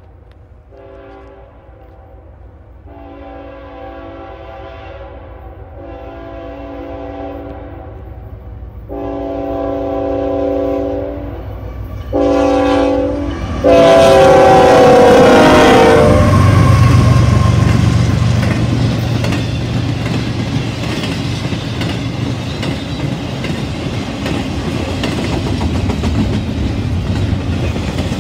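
Norfolk Southern freight train led by GE ET44AC and ES44AC diesel locomotives approaching and passing. The multi-tone air horn sounds a series of long blasts that grow louder, and the last, loudest blast drops in pitch as the lead locomotive goes by. Then comes the low rumble of the locomotives, followed by the steady clickety-clack of double-stack intermodal cars rolling past.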